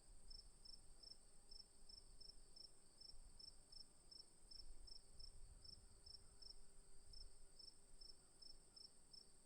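Crickets chirping, faint: a steady high trill under short, evenly repeated chirps about three a second.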